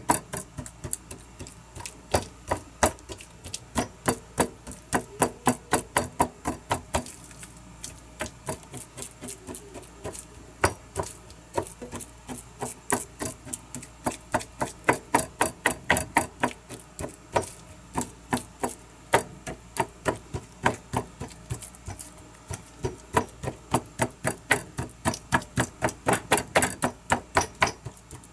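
A fork stabbing repeatedly through raw chicken breast and tapping the plastic cutting board beneath, in quick sharp pricks about three a second, piercing the meat all over so the seasoning soaks in.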